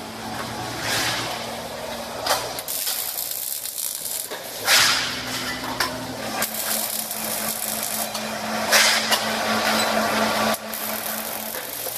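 Robotic welding arc crackling and hissing in several runs of a few seconds each, with short sharp surges between them, over a steady machine hum.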